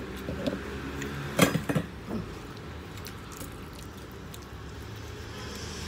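Close-up eating sounds: a man chewing and tearing food apart with his hands, with a short cluster of sharp clicks or knocks about a second and a half in.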